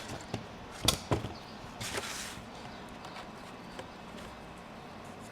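A couple of sharp knocks followed by a short scraping rustle, from handling a new oil filter under a pickup truck.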